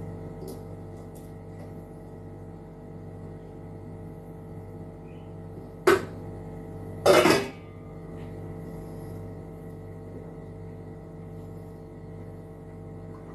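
A steady hum made of several fixed tones, with one sharp knock about six seconds in and a short cough a second later.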